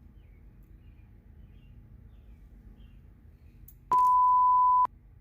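Faint low background hum, then about four seconds in a loud, steady electronic beep at a single mid pitch, lasting about a second and cutting off sharply.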